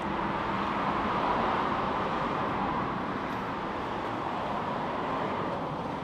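Outdoor street traffic noise: a vehicle passing, loudest about a second in, easing into a steady background of traffic.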